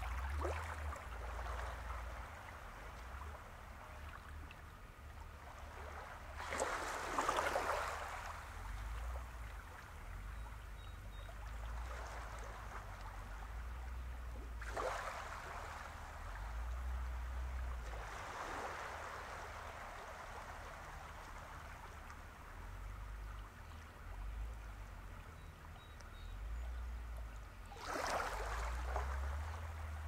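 Small harbor waves lapping and washing at the water's edge, swelling and fading every few seconds, loudest about a quarter of the way in and again near the end.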